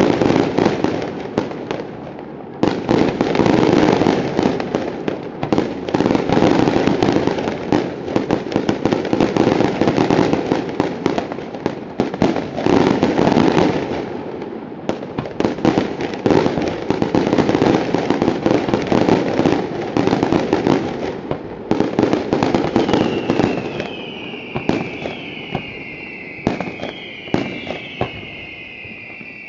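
Daytime fireworks display: long volleys of rapid, densely packed bangs and crackling with brief pauses between them. Near the end the firing thins to separate bangs, with several falling whistles overlapping one another.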